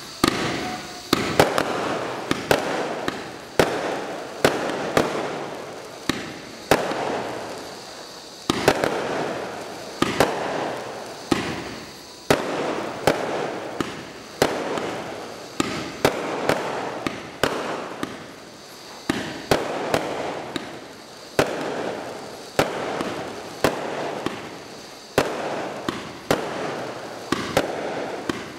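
Bright Star 2397 War Machine 224-shot firework barrage firing shot after shot, about one a second. Each shot is a sharp bang that dies away over a second or so.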